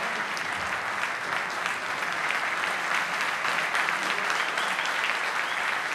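Large audience applauding: dense, steady clapping from a full hall.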